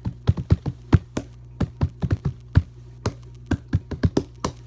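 Quick, irregular tapping by hand: sharp clicks several a second, tapped out as a makeshift beat, over a steady low hum.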